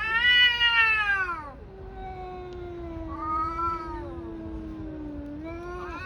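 Two Chinese Li Hua (Dragon Li) tabby cats caterwauling at each other in a fight standoff. One loud yowl rises and falls at the start. Then one cat holds a long, low, steady moan while the other yowls over it, and a new rising yowl begins near the end.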